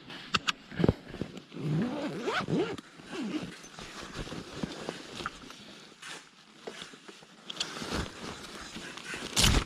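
Zipper of a luggage bag being worked, with handling clicks and rustles, ending in a sharp loud rustle or knock.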